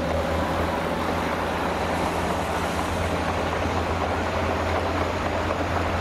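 Heavy dump truck's diesel engine running steadily while its raised bed tips a load of sand out onto the ground.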